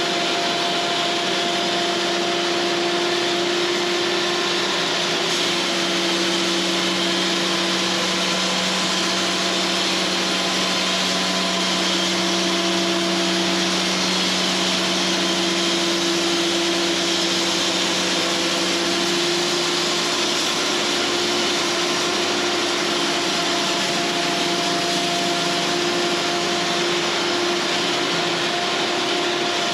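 Cooks AC36 band sawmill running steadily as it saws a pine cant, a continuous machine hum under the hiss of the blade in the wood.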